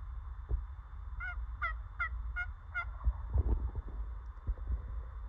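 A run of five turkey yelps in quick succession, about two and a half a second, each a short clear note, over a low rumble.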